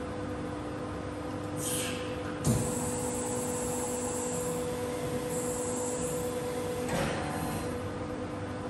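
Bystronic Xpert 150 hydraulic CNC press brake running a bend cycle: a steady hydraulic hum throughout, a sharp clunk about two and a half seconds in followed by a high hiss, and another short burst of noise near the end.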